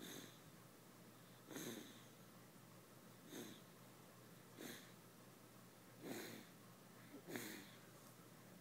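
Faint snoring: six short, wheezy breath sounds, about one every one and a half seconds.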